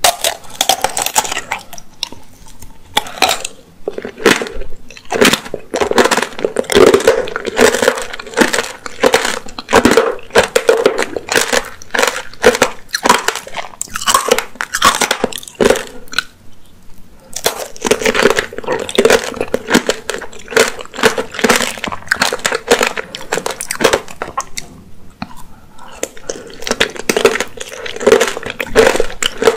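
Apricot tanghulu being bitten and chewed: the hard candied sugar shell crunches and crackles in dense runs as it breaks between the teeth, along with chewing of the soft apricot inside. The crunching eases off briefly about halfway through and again later.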